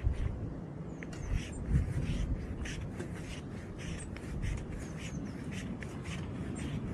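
Wind buffeting the microphone in low gusts, with a bird calling in short, repeated high notes throughout.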